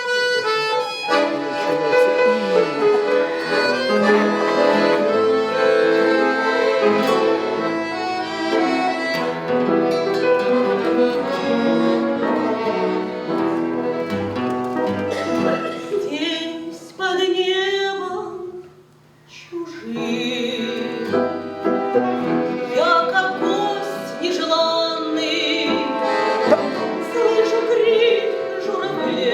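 Music of a slow Russian romance, mostly instrumental, that thins out almost to nothing for a moment about two-thirds of the way through before the music resumes.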